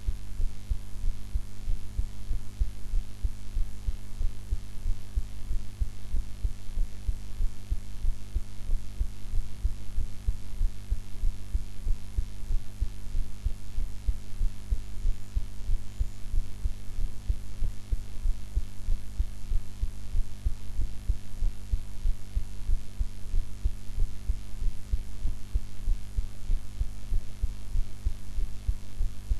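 A young woman's heartbeat after a meal, recorded close up: a steady, even run of low thuds with a steady low hum underneath.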